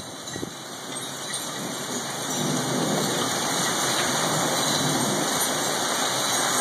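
Heavy rain falling steadily, getting louder about two seconds in and then holding.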